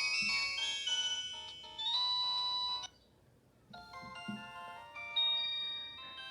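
Samsung GT-E1280 mobile phone playing a ringtone melody of clear electronic notes. The tune stops just under three seconds in, and after a short pause another melody starts.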